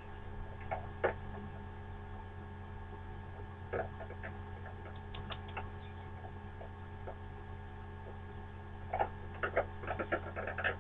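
Steady electrical hum with scattered light clicks and ticks from a pencil held through the bars of a hamster cage, coming in a quicker cluster near the end.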